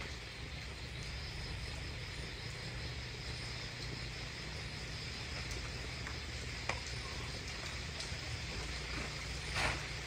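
Steady night chorus of crickets chirring. A faint click comes about two-thirds of the way in, and a louder short knock just before the end.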